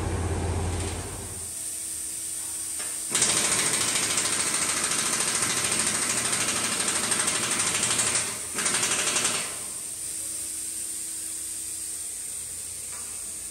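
A power tool runs in two bursts of loud, rapid rattling: one of about five seconds, then, after a brief pause, a shorter one of about a second. A steady machine hum runs underneath.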